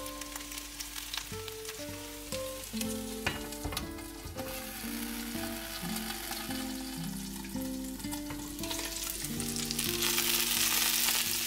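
Zucchini fritters frying in oil in a nonstick pan, a steady sizzle that grows louder near the end as the glass lid is lifted off.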